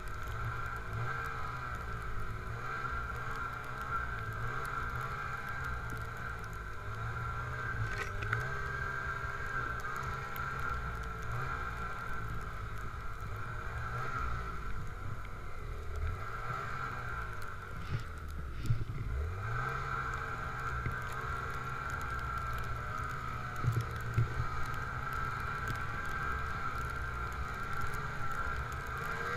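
Snowmobile running along a trail at steady speed, engine drone with a steady high whine alongside it. About two-thirds of the way through, the throttle eases off briefly and the engine pitch climbs again as it comes back on.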